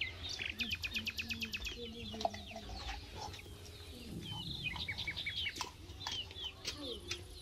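Small songbirds chirping, with a quick run of repeated chirps in the first two seconds and short falling chirps later. A hen clucks low beneath them.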